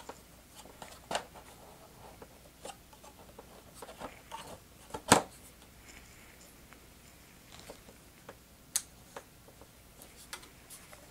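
Scattered small clicks and taps of hands fitting the wing struts and their narrow pins into an E-Flite PT-17 model biplane, the sharpest click about five seconds in and another near nine seconds.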